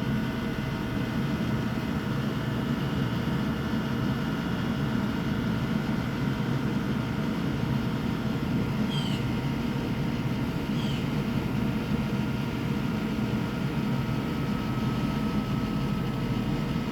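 Steady low rumble with a faint hum, and a bird giving two short, high, falling chirps a couple of seconds apart in the middle.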